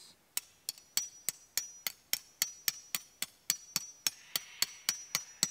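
A hammer driving a metal tent peg into the ground: a rapid, steady run of strikes, about three and a half a second, with a high metallic ring.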